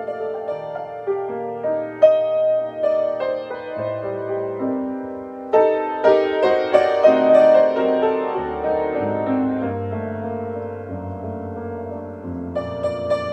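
Jazz piano playing an instrumental solo chorus on a ballad, with sustained chords under a melodic line and no singing. The playing swells to a louder passage about halfway through.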